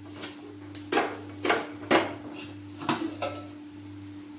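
Stainless steel pots and lids clinking and clanking as they are picked up and handled, about eight sharp metallic knocks over the first three seconds or so.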